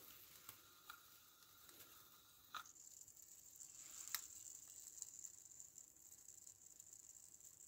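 Faint hiss from a small model steam engine's boiler. The hiss sets in with a click about two and a half seconds in and then holds steady, high-pitched. Light irregular ticking comes before it, and a single sharper click falls a little over four seconds in.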